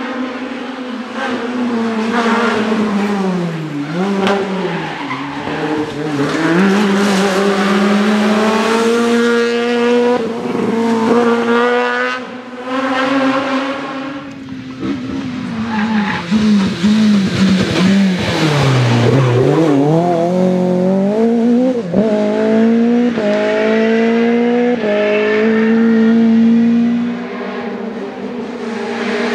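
Rally car engine revving hard at full throttle. Its pitch falls twice as the car brakes and shifts down, and near the end it climbs in quick steps through several upshifts.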